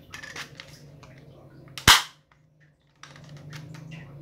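Light clicks of a spring-powered airsoft SIG P226 pistol being cocked, then one loud, sharp shot about two seconds in as its spring piston is released.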